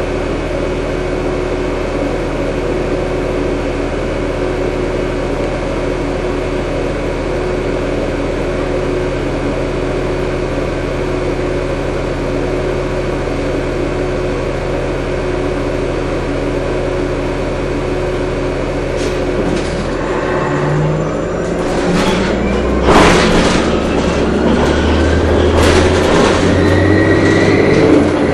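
Orion VII diesel-electric hybrid bus heard from inside the cabin: a steady hum while the bus stands at a stop. About two-thirds of the way through the note changes and an electric drive whine rises in pitch as the bus pulls away, with several knocks and rattles, one sharp and loud.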